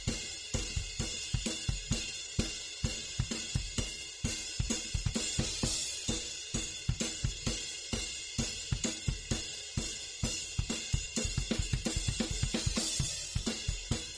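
Background music: a steady drum-kit beat with kick, snare, hi-hat and cymbal, several strikes a second.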